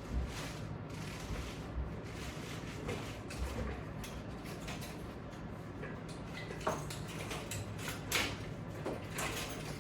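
Exercise equipment being worked or handled: a few scattered soft knocks and sliding scrapes over a steady low room hum.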